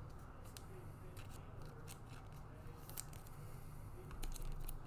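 Foil trading-card pack wrapper being handled and torn open by hand: a scatter of faint crackles and ticks, a little louder about four seconds in.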